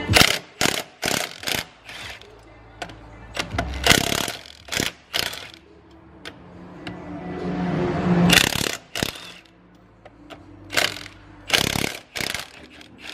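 Impact wrench hammering on a car wheel's lug nuts in short bursts, loosening them to take the wheel off: several bursts in the first two seconds, more around four to five seconds and again near the end, with a longer rising sound about eight seconds in. Background music plays underneath.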